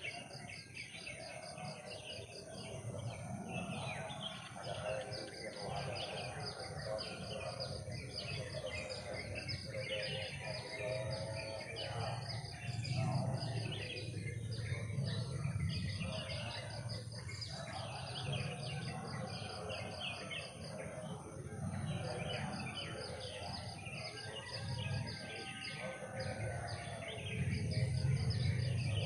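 Forest ambience: a steady high insect trill with a dense chorus of chirping calls, over a low rumble that grows louder near the end.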